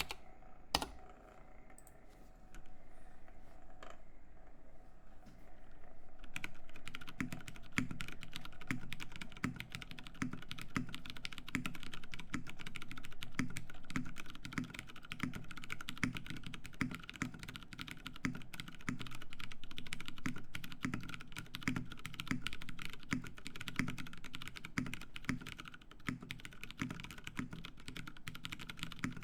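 A 60% mechanical keyboard (The60) with lubed Cherry MX Brown tactile switches, an aluminium plate and plate foam, typed on. There are a few isolated key clicks and knocks at first, then steady, fast typing starting about six seconds in.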